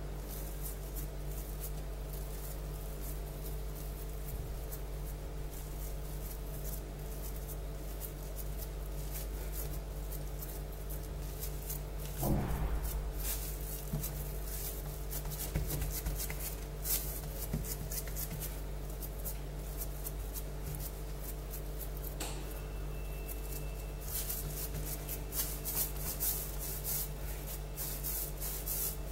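Hands rubbing, pressing and rolling semolina dough on a granite countertop: faint scattered rustles and taps, with a louder knock about twelve seconds in, over a steady low hum.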